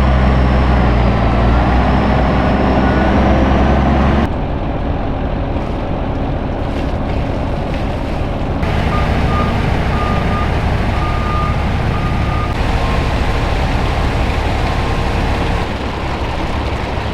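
Heavy diesel construction equipment running steadily, a loud low engine note at first, then after a sudden change the sound of other machinery working. Partway through a reversing alarm beeps repeatedly for a few seconds.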